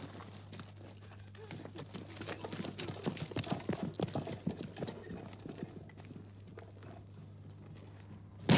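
Soldiers' boots walking off across hard ground: irregular clattering steps that grow louder, then fade away. A sudden loud blast breaks out right at the end.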